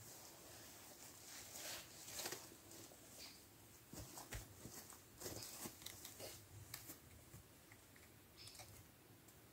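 Faint footsteps crunching through dry fallen leaves and the rustle of a long dead branch being picked up and leaned against a teepee frame of branches, with a couple of low thuds about four seconds in.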